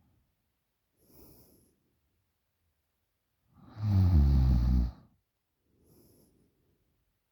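A sleeping person snoring: one loud snore lasting just over a second about halfway through, with faint breaths before and after it.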